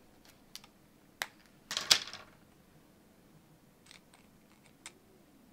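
Sharp clicks and snaps of small 3D-printed plastic parts being broken off a printed kit card and handled, with the loudest short clatter about two seconds in and fainter ticks near the end.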